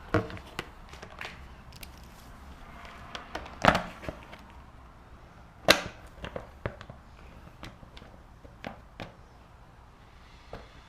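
Scattered clicks and knocks of a hard plastic dirt bike front number plate being handled and clipped into place, with two louder knocks about four and six seconds in.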